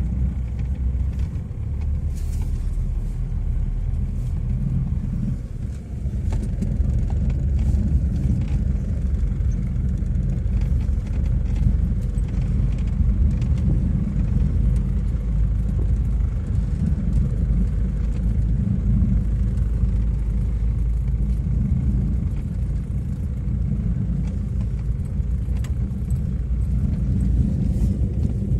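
Wind buffeting the microphone: a steady low rumble that rises and falls, with a few faint clicks.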